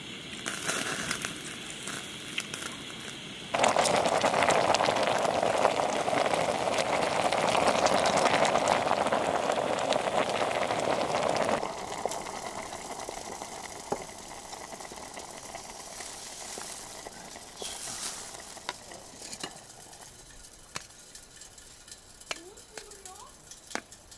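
Beef sizzling as it fries. The sizzle is loud for about eight seconds from a few seconds in, then drops suddenly to a quieter sizzle with a few light clicks.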